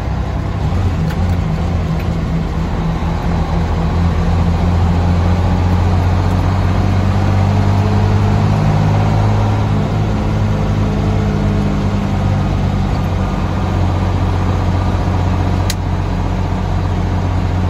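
A fire engine's engine running as the truck drives along, heard from inside the cab: a steady low drone that builds a few seconds in and eases back after the middle.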